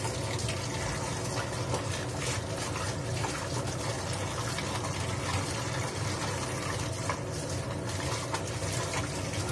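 Kitchen tap running steadily into a stainless steel sink as dishes are rinsed under the stream, with a few faint clicks.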